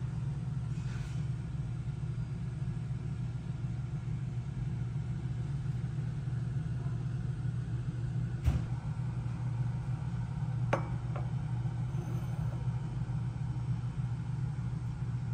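Steady low mechanical hum running throughout, with one sharp knock about eight and a half seconds in and a couple of light clinks a couple of seconds later.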